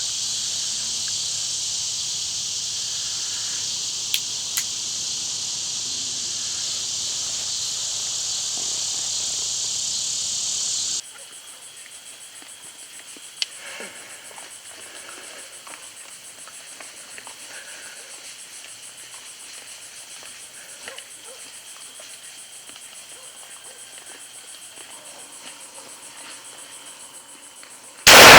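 Steady high-pitched chorus of crickets and other night insects, dropping abruptly to a fainter chorus about eleven seconds in. Right at the end, one very loud shot from a double-barrel 1911 pistol firing two .45 caliber rounds at once.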